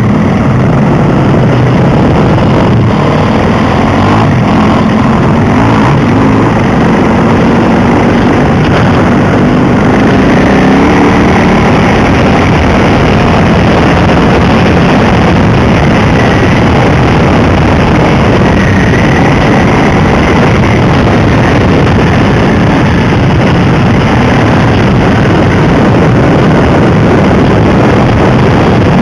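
Dirt bike engine running under way, heard from on board the moving bike, buried in loud wind rush on the microphone. The sound is continuous and distorted, with the engine note drifting up and down.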